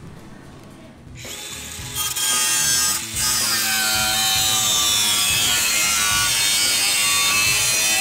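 DeWalt angle grinder with a thin cut-off disc starting up about a second in, then cutting through an aluminium radiator mounting bracket. It makes a loud steady grinding whine, with a brief dip about three seconds in and its pitch sagging slightly as the disc bites.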